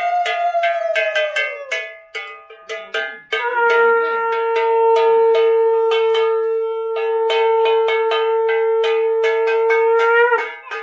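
A conch shell (shankha) blown in one long, steady blast of about seven seconds that starts a few seconds in; before it, an earlier blast tails off and drops in pitch. A bell rings in quick, continuous strikes throughout.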